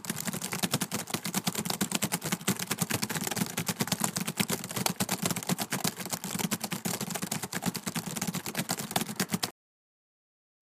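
Door hinge creaking: a long, grating run of fast clicks that cuts off abruptly after about nine and a half seconds.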